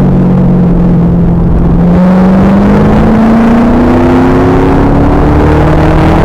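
2000 Pontiac Trans Am Firehawk's LS1 V8 running hard under load, the revs sagging slightly and then climbing steadily from about two seconds in. It is recorded very loud and harsh by the onboard camera.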